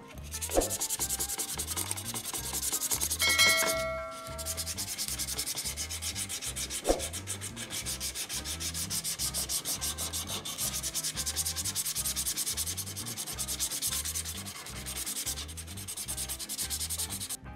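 Sandpaper rubbed rapidly back and forth over the die-cast metal body of a 1/24-scale model car, a steady run of scraping strokes. A short metallic ding rings out about three seconds in, and there are a couple of light knocks.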